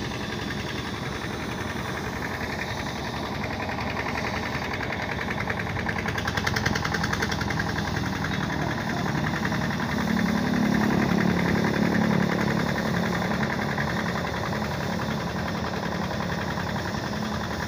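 An engine running steadily with a fast, even knocking pulse, growing louder for a couple of seconds past the middle.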